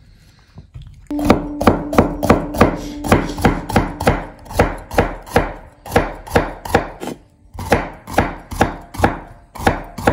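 Cleaver slicing bitter gourd (ampalaya) on a wooden cutting board: even chops about two to three a second, starting about a second in, with a brief pause near the end before the chopping resumes.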